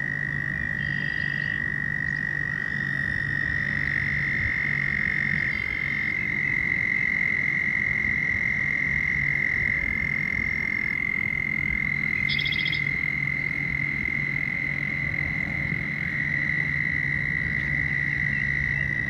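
A chorus of frogs calling: long, steady, high trills that overlap one another, with a low steady hum underneath.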